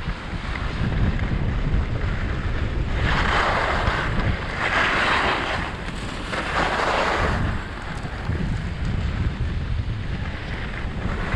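Skis hissing over packed snow in three surges a few seconds in, each about a second long, over a steady low rumble of wind on the microphone.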